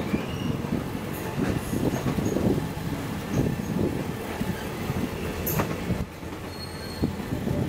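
Moving passenger train heard from an open carriage window: a steady rumble and uneven clatter of steel wheels on the rails, with a short faint squeal near the end.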